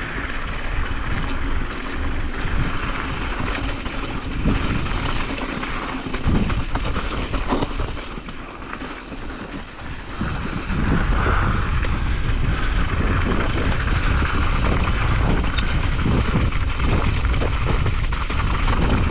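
Wind buffeting the action camera's microphone, mixed with a Specialized Kenevo SL e-mountain bike's tyres rolling over loose gravel and the bike clicking and rattling over the rough trail. The low wind rumble gets louder about ten seconds in and stays strong.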